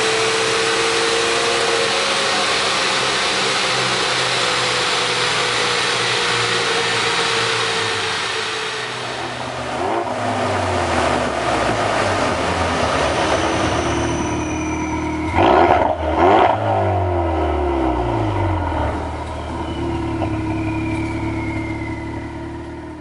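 Ford Focus RS Mk3's turbocharged 2.3-litre four-cylinder with a Milltek sport exhaust, run on a chassis dyno. First it runs hard under a loud rush of air from the dyno's cooling blower. Then the revs fall away, two sharp throttle blips come about two-thirds of the way in, and the engine settles before fading out at the end.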